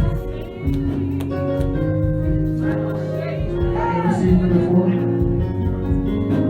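Background worship music: held keyboard chords that change every second or two.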